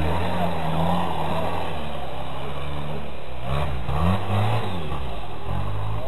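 Toyota off-road 4x4's engine working under load as it climbs a steep creek bank, then revving hard up and down several times about three and a half seconds in as it claws its way up.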